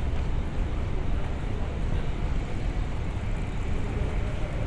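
Steady city street noise: an even, low rumble with hiss, like traffic, and no distinct events.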